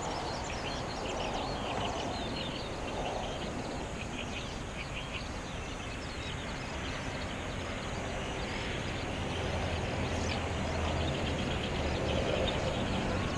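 Little terns calling: a rapid run of short, high chirps, with a chick begging a parent to brood it. Behind them is a steady low rumble, with a low hum in the second half.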